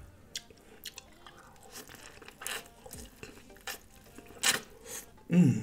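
Close-up chewing and biting into a butter-dipped corn cob: wet smacking with scattered crunchy clicks, the loudest about four and a half seconds in. A short voiced sound, like a hummed "mmm", comes near the end.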